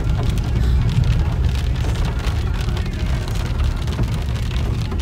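Heavy rain pattering on the roof and windscreen of a Ford EcoSport, heard from inside the cabin, over the steady low rumble of the car driving on a wet dirt road.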